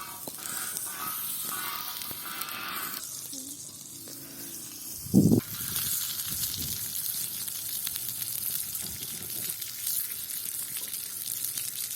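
Butter and chopped sausage sizzling as they fry in a pan. About five seconds in there is a short thump, and the sizzling is louder after it.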